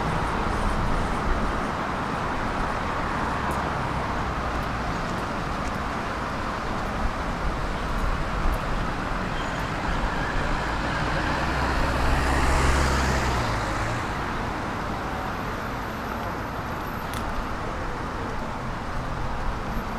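Steady road traffic on a multi-lane city street, cars driving past. A heavier vehicle's engine rumbles past close by around the middle, the loudest moment, before fading.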